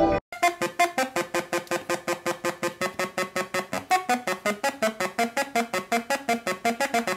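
Hell Synth, a palm-sized DIY noise synth, running its Arp Box arpeggiator program: a fast arpeggio of short bleepy notes, about seven a second, with the pitch pattern shifting as its knobs are turned.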